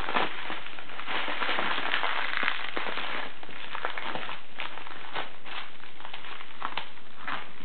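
Thin plastic courier bag crinkling and tearing as it is ripped open by hand, with crisp crackles throughout; from about halfway on, separate sharp snips of scissors cutting the plastic.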